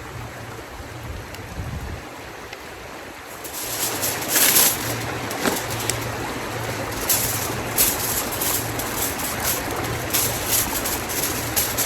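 Aluminium foil being crinkled and wrapped around a paper-wrapped sweet potato, a dense crackling that starts about three and a half seconds in and goes on in irregular bursts.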